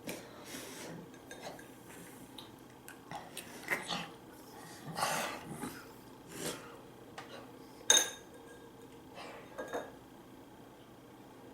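Eating utensils clinking and scraping against dishes in scattered strokes, with one sharp clink about eight seconds in.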